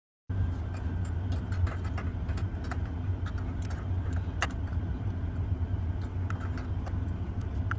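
Steady low rumble with scattered small metallic clicks, the wrench working the brass fittings of the water heater burner's gas tubes.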